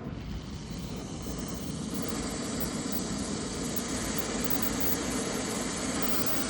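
Brazing torch flame burning with a steady rushing hiss on a copper line joint, rising a little over the first couple of seconds and then holding even.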